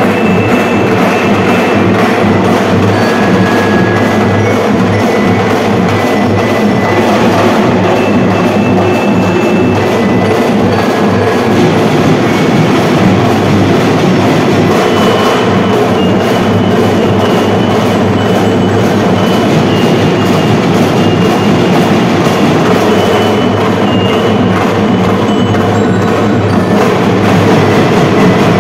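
A drum and bugle corps drumline playing a continuous rhythmic cadence on snare, tenor and bass drums, with short high bell notes ringing over the drumming.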